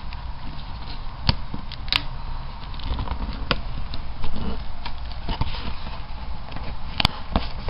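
Hands working a cardboard model-kit box: a utility knife cutting through the box's tape and seam with scattered clicks and scrapes, a knock about four seconds in as the knife is put down on the wooden table, then the box flap being pried open.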